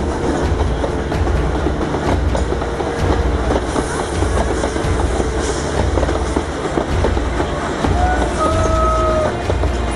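Railway coaches rolling past at close range on both sides, a steady rumble with wheels clicking over the rail joints. A brief tone sounds about eight seconds in.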